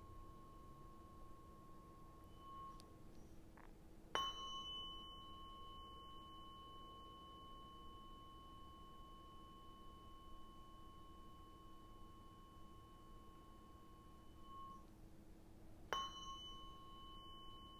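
Tuning fork ringing with a clear, high, steady tone, struck again sharply about four seconds in and once more near the end, each strike a bright ping that rings on for several seconds. The ringing sits over a faint, steady, lower hum.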